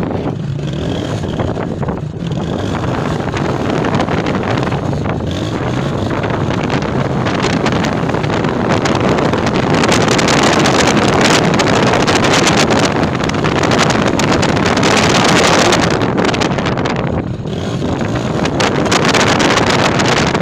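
Motorcycle riding along at speed: the engine running under heavy wind rush on the microphone. The wind rush swells louder about halfway through and dips briefly near the end.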